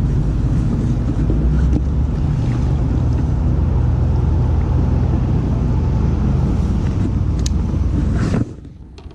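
Wind buffeting the microphone: a loud, steady low rumble that cuts off suddenly near the end.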